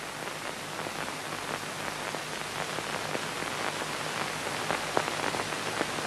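Steady hiss with scattered crackles and clicks: the surface noise of an old 1950s film soundtrack, with no other clear sound.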